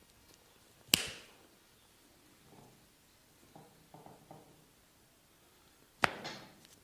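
Two sharp strikes of a percussive massage on the body, about five seconds apart, each ringing out briefly, with a few faint soft knocks between them.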